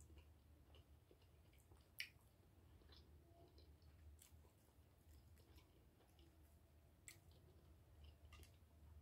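Quiet close-up chewing, with a few soft sharp clicks as a plastic fork picks at the food in the dish, over a faint low steady hum; otherwise near silence.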